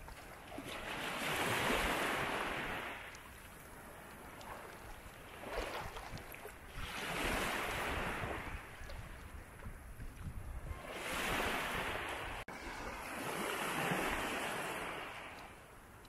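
Sea waves breaking and washing in: four swells of surf, each rising and fading over a couple of seconds.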